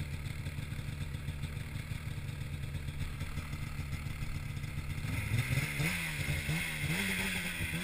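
Polaris Pro RMK snowmobile's two-stroke engine idling with a steady pulsing rumble, then revved about five seconds in, its pitch rising and dipping several times as the sled is worked out of deep snow, with a hiss rising along with the revs.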